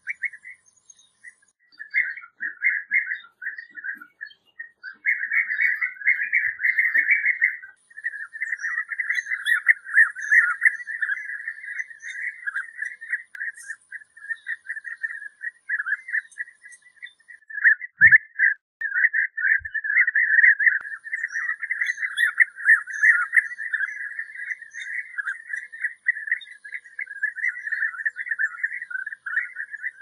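European bee-eaters calling: many short calls overlap in an almost unbroken chatter, with a few brief pauses.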